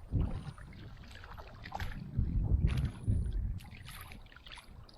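Water splashing and small knocks around a kayak as a hooked fish is brought in, with low rumbling bursts of handling or wind on the microphone at the start and again from about two to three and a half seconds in.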